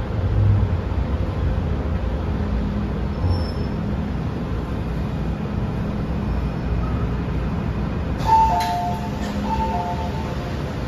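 Low, steady running rumble inside an MTR M-train passenger car as it comes to a stop at a station. About eight seconds in, the doors release with a sharp click and a two-note chime sounds, alternating high and low, as the doors open.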